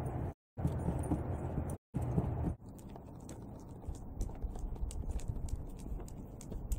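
A low rushing noise, cut off by abrupt silent gaps, gives way after about two and a half seconds to a dog's toenails clicking and tapping on a concrete driveway. The clicks come in a quick, irregular patter as the dog steps and pivots at a person's heel.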